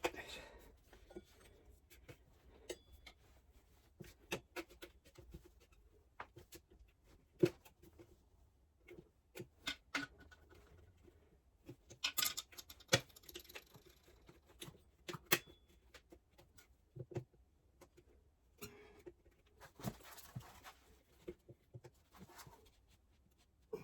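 Irregular light clicks and knocks of hand tools and parts being handled, with the sharpest knocks a little after seven seconds and around twelve to thirteen seconds in.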